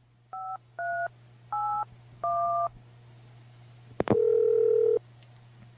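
Touch-tone telephone dialing: four short two-tone keypad beeps, then a click and a single steady telephone tone lasting about a second as the call goes through. A low line hum runs underneath.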